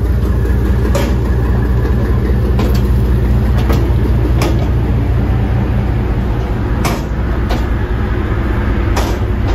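High-speed passenger ferry's engines running at the dock, a loud steady low rumble. A few sharp knocks sound over it, several in the middle and one near the end.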